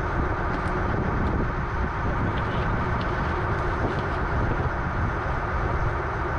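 Engine running steadily aboard a fishing boat, a constant low drone, with a few faint clicks and knocks about two to four seconds in.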